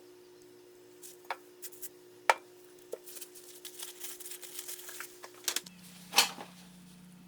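Scattered clicks and light taps of small hard parts and tools being handled, with a louder knock near the end, over a faint steady hum.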